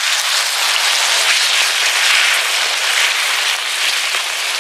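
Cold milk being poured into a hot cast-iron skillet of sautéed chicken, shrimp and leeks in a butter-and-flour roux, sizzling loudly as it hits the pan. The sizzle swells about halfway through and eases slightly near the end.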